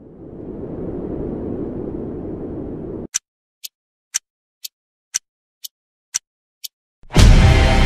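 Edited intro sound effects. A rising noise swell cuts off about three seconds in, then eight sharp ticks come two a second, alternately louder and softer. The ticks end in a heavy boom as music comes in near the end.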